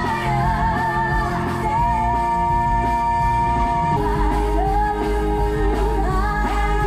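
A live band and singer performing a song, heard from the audience in a large theatre. The voice wavers with vibrato and holds one long note about two seconds in, and the music shifts to a new chord about four seconds in, over a steady bass.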